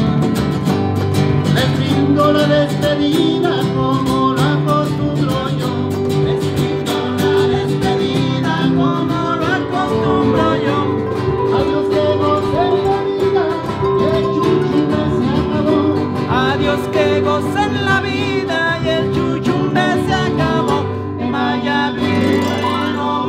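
Son jarocho played live on a jarocho harp and a strummed acoustic guitar, with a man singing over the steady plucked-string accompaniment.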